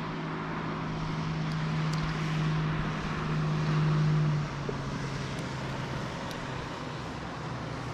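A steady engine hum that drops in pitch and gets quieter about halfway through.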